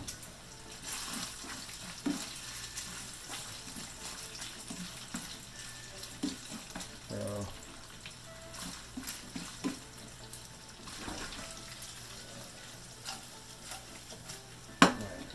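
Bacon and a tuna steak sizzling in hot pans, a steady hiss with little pops and clicks, and one sharp knock near the end.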